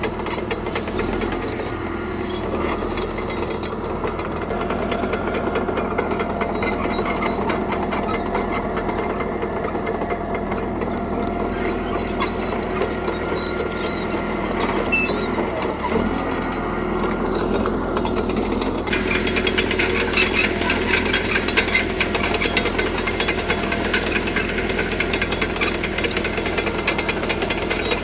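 CAT D3K crawler bulldozer working: its diesel engine runs steadily under load, with a metallic clatter of the running gear that grows louder and busier about two-thirds of the way in.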